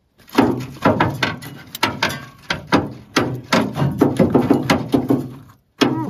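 Rapid, irregular loud thunks of a netted chub thrashing against the hull of an aluminium canoe, several knocks a second, with a brief pause near the end.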